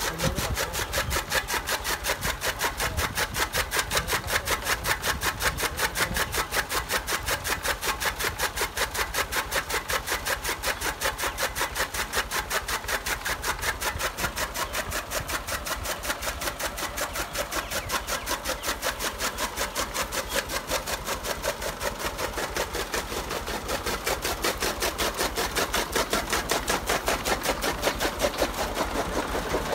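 Tractor-driven chaff cutter chopping green fodder: a fast, even clatter of blade strokes from the spinning flywheel, with the tractor engine running under it.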